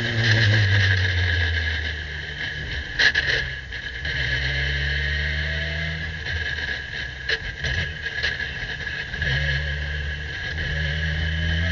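Onboard sound of a Norma prototype race car's engine at low speed. The engine note drops as the car slows and changes down, then rises again as it accelerates. Sharp clacks come about three seconds in and again around seven to eight seconds.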